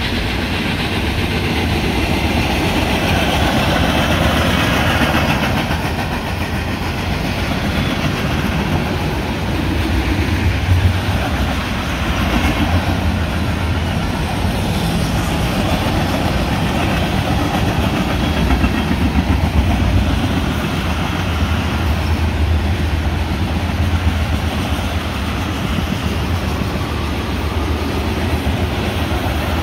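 Freight train's railcars, here tank cars, rolling past close by: steel wheels on the rails make a steady, loud noise.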